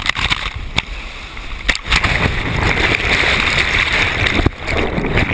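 Whitewater of a big river-rapid hole crashing over an inflatable raft: a loud, churning rush of water with sharp knocks and splashes hitting the camera. About two seconds in the water noise thickens as the raft is buried in the hole.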